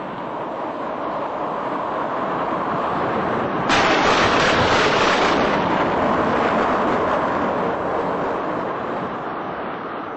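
Strong wind rushing and gusting. It swells steadily, jumps suddenly louder about four seconds in, then slowly eases.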